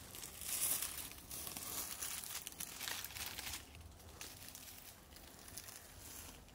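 Dry fallen leaves crinkling and rustling as a hand rummages through them, in irregular surges that are loudest for the first three seconds or so and then ease off to lighter rustles.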